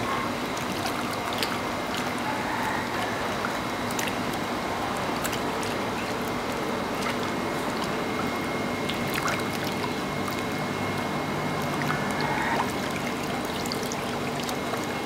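Water running and splashing over a stainless steel table as a suckling pig carcass is rinsed and rubbed by hand, with scattered small splashes and knocks.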